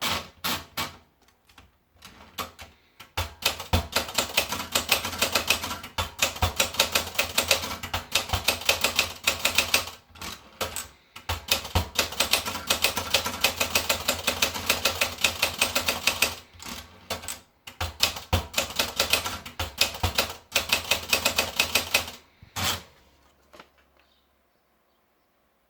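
Olympia Traveller portable manual typewriter being typed on: fast runs of keystrokes broken by short pauses, stopping a couple of seconds before the end.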